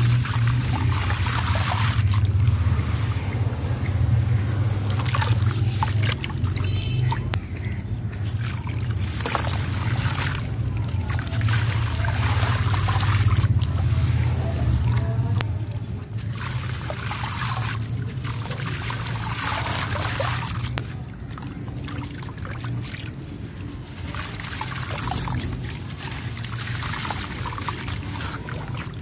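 Wet sand-cement crumbling and trickling into a basin of water, then hands swishing and squelching through the gritty slurry in repeated strokes. A steady low rumble runs under the first half and stops about halfway through.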